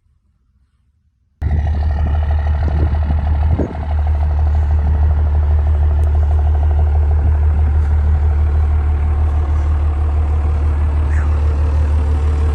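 Vehicle engine running steadily, a loud low hum that cuts in abruptly after about a second and a half of near silence.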